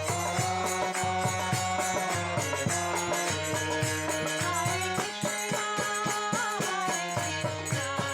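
Background music: a folk-style devotional tune with pitched melody over steady percussion, with a rattle or tambourine-like jingle.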